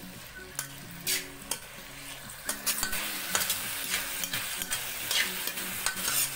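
Metal spatula scraping and knocking against a kadai while stir-frying chopped vegetables in sauce, with a frying sizzle under it. The sizzle grows louder about two and a half seconds in.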